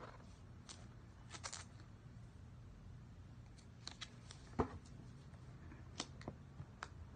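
Faint taps, clicks and light scrapes of an iPhone 11 Pro Max box being handled and turned over in the hands, with one louder knock about four and a half seconds in.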